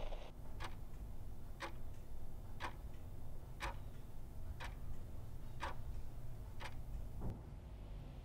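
Quartz wall clock ticking steadily, one tick a second, seven ticks in all.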